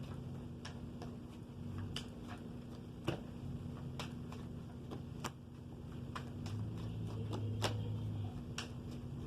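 Tarot cards being handled and drawn: scattered light clicks and taps of cards, irregular and a second or so apart, over a steady low hum.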